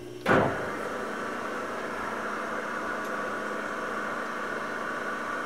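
Emco V13 metal lathe starting up with a loud clunk about a third of a second in, then its spindle and four-jaw chuck running steadily at low speed with a steady hum and whine, set up for reaming.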